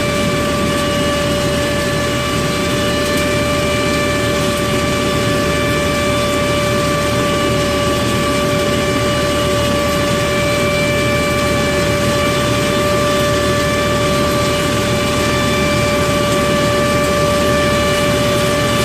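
Hasatsan H 1800 mechanical-sweeper nut harvester running steadily: a constant high whine over a rushing noise, with no change in speed.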